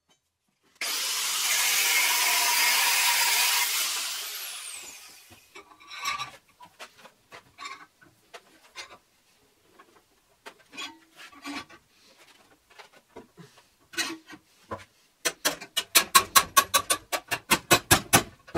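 Hammer striking a steel bolt clamped in a bench vise, a fast run of sharp blows, about six a second, near the end. Before this there are scattered clinks of metal, and at the start a loud rushing noise that lasts about three seconds and fades out.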